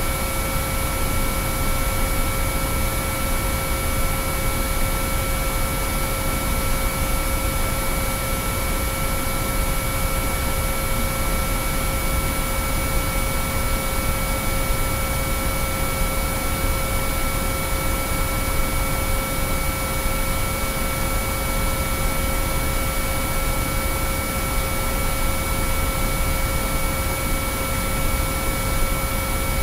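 Binaural-beat track: several steady sine-wave tones held at different pitches over a constant hiss of noise.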